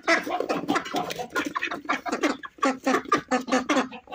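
Domestic ducks quacking, a rapid run of calls several a second with a short pause about halfway.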